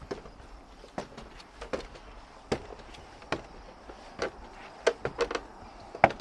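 Footsteps climbing an observation tower's stairs: sharp knocks a little under one a second, bunching into a quicker cluster about five seconds in.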